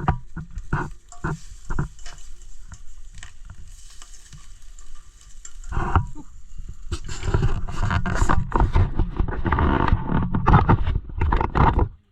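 Eggs frying in a pan, with a utensil scraping and clicking against it. About halfway in, a louder rough rumbling noise comes in and carries on to the end.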